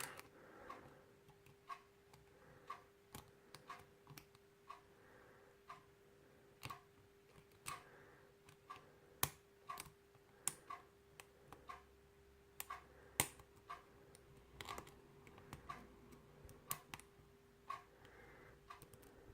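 Small, sharp metallic clicks at an irregular pace as a hook pick works the pins of a pin-tumbler lock under tension from an Allen-key tension wrench, with a faint steady hum underneath.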